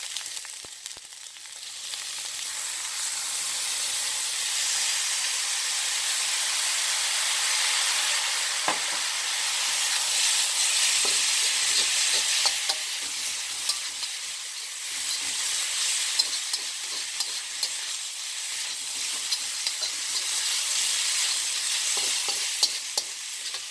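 Fried rice sizzling in a hot steel wok while a metal wok spatula scrapes and taps against the pan as it is stir-fried. The sizzle grows louder a couple of seconds in, eases for a few seconds past the middle, then picks up again, with scattered sharp clinks of the spatula on the wok.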